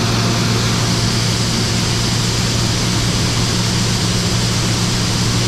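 1980s combine running steadily under load while its unloading auger empties the grain tank of soybeans into a truck: a constant engine drone with a hiss over it.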